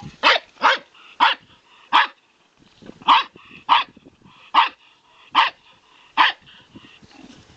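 Small terrier-type dog barking at a garter snake: nine short, high barks, irregularly spaced about half a second to a second apart.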